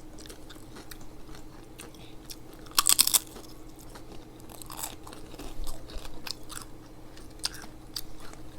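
Close-mic chewing of crunchy food: sushi topped with tortilla chips, with a loud crunching bite about three seconds in and another just before five seconds, between small wet clicks of chewing.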